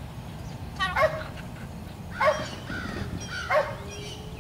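Dog barking three times, evenly spaced a little over a second apart.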